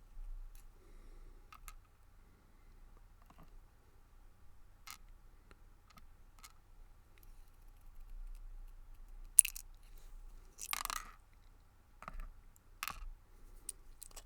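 Small padlock parts, pin springs and pins, being handled and set down: scattered light clicks and taps, the sharpest about nine seconds in and a short scrape-like cluster soon after.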